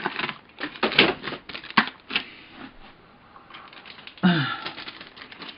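Plastic model kit parts and sprues being handled and rattled: a quick run of light clicks and clatter, then quieter rustling and a further burst of handling about four seconds in.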